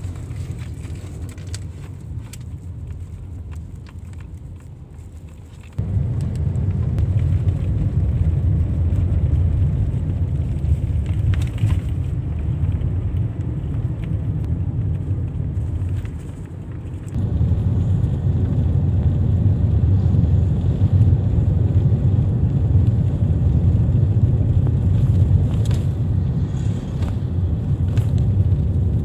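Low, steady rumble of a moving car heard from inside the cabin, road and engine noise. It gets much louder suddenly about six seconds in, dips briefly past the middle, then comes back up.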